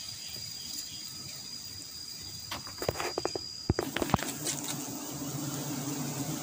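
A steady, high insect trill over forest ambience stops abruptly a little more than halfway through. A few sharp knocks and rustles of handling come at that point, and a low steady hum follows.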